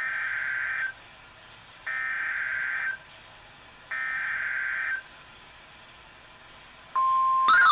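Emergency Alert System SAME header sent over NOAA Weather Radio: three one-second bursts of warbling digital data tones, about a second apart, announcing an incoming warning. About seven seconds in, the steady 1050 Hz NOAA Weather Radio warning alarm tone starts, and a sweeping, siren-like tone joins it in the last moment.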